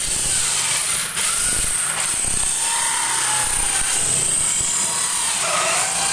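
Small corded electric drill running under load with a hole saw cutting a circle through MDF board: a steady motor whine over the rasp of the saw teeth in the board, the pitch sagging slightly partway through.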